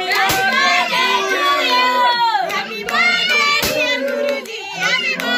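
Several voices, children's prominent among them, singing and calling out together in a small room, with a few sharp hand claps.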